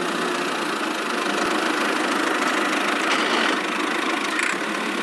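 A small motor or engine running steadily, a fairly high, even buzz that cuts off suddenly at the end.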